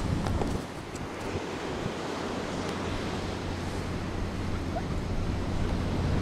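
Steady rush of sea surf and wind, with wind rumbling on the microphone that eases off about half a second in.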